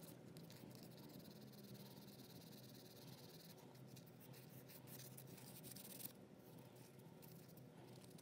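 Faint, uneven scratchy rubbing of an abrasive sanding pad worked by hand over the puttied die-cast metal body of a toy car.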